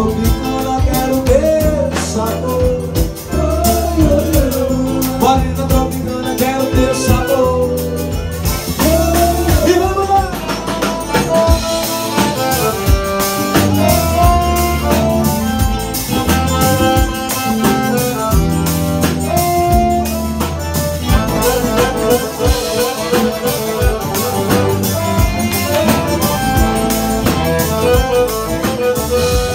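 Forró pé-de-serra band playing live: an accordion carries the melody over the beat of a zabumba bass drum, with guitars and a drum kit.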